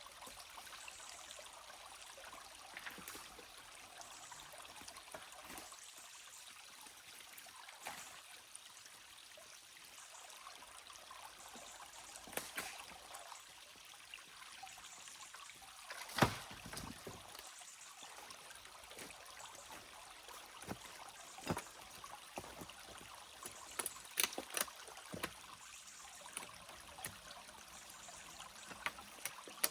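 Small stream trickling steadily, with scattered sharp clicks and knocks on top; the loudest comes about sixteen seconds in.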